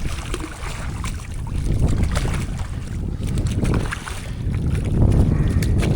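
Wind rumbling on the microphone in an open fishing boat, with scattered light clicks and knocks.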